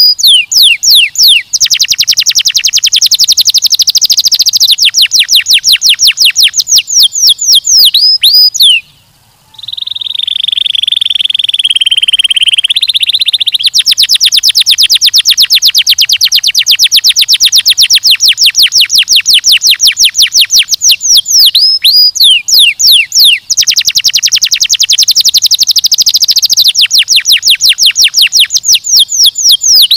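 Domestic canary singing: long runs of very fast trilled notes, many to the second, with quick downward-sweeping notes between them. About nine seconds in there is a brief pause, then a lower, steadier rolling phrase before the rapid trills resume.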